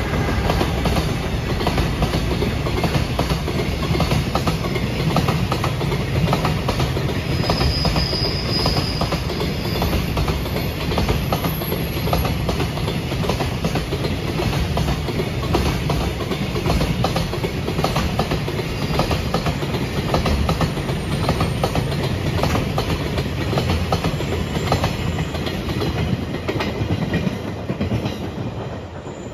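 Container freight train hauled by a JR Freight EF210 'Momotaro' electric locomotive passing close by: a steady clickety-clack of wagon wheels over rail joints on a low rumble, dying away near the end as the last wagon goes by.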